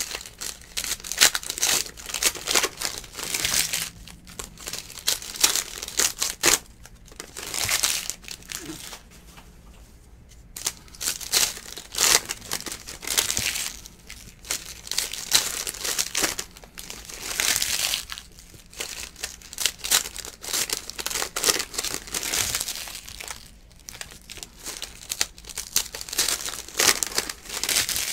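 Foil trading-card pack wrappers being torn open and crinkled in hand, in repeated crackling bursts with short pauses between.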